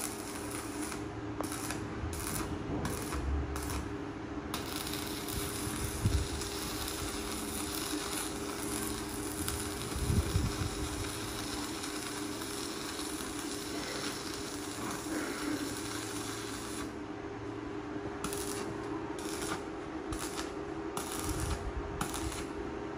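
Workshop metalwork noise: a steady machine hum with scattered knocks and light metallic clinks.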